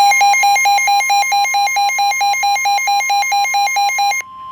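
Emergency alert attention tones: a rapidly pulsing electronic beep, about five pulses a second, over a steady high tone. The pulsing stops about four seconds in, leaving the steady tone alone. The tones announce a severe thunderstorm warning.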